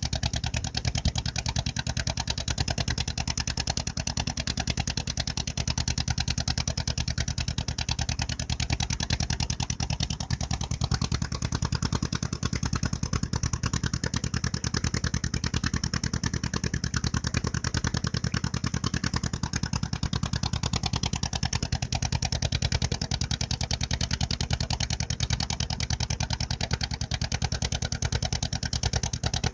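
Motorboat engine running steadily at cruising speed with a rapid, even pulse.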